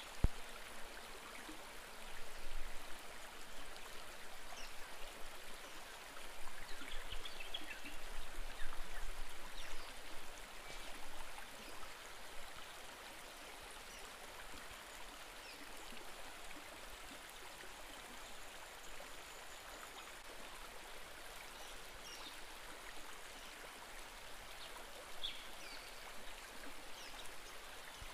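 Shallow river water running over rocks and riffles, a steady rushing, with a few faint high chirps over it.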